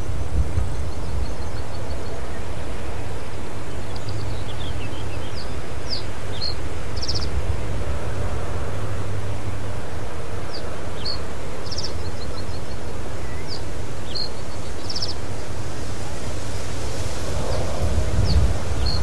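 Common reed bunting singing its short song of a few high notes: two phrases several seconds apart, with a third starting near the end. Steady wind rumble on the microphone runs underneath and is louder than the song.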